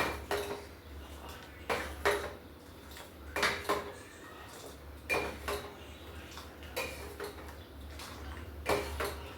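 Metal ladle clinking against a metal pan while stirring tea, in light knocks that ring briefly, often two close together, every second or two, over a steady low hum.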